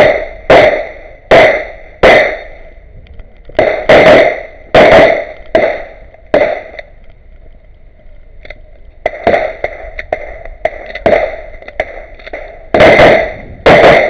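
STI 9mm (9x19, major) competition pistol firing about twenty shots in quick pairs and strings, with a pause of about two seconds in the middle, as in a reload or a move between shooting positions.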